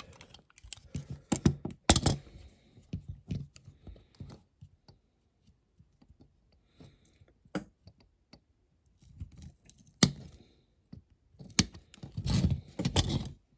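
Handling noise from a die-cast metal toy car and a small hand tool: scattered sharp clicks and light knocks with quiet gaps between them, then a denser run of handling noise near the end.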